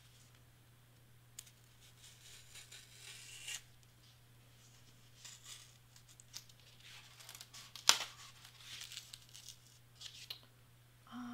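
Hobby knife blade drawn through black cardstock in short, irregular scratchy strokes, with one sharp snap about eight seconds in. The blade is dragging and not cutting cleanly all the way through, a sign it needs changing.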